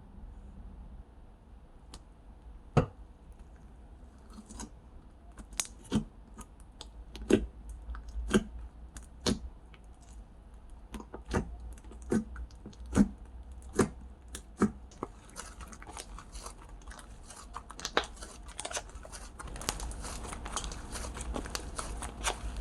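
Slime being handled and pressed, giving sharp wet pops and clicks about once a second, then a denser crackling from about fifteen seconds in.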